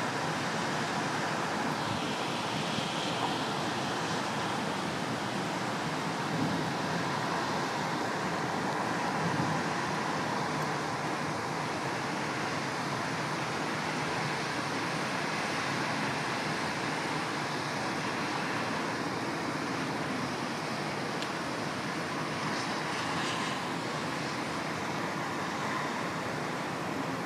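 Steady city traffic noise, an even rush with no distinct events standing out.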